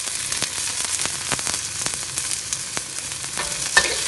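Bamboo-shoot strips sizzling in hot pork lard and garlic in a wok, a steady hiss full of sharp crackles, just after being added. Near the end a metal spatula clinks against the wok as stirring begins.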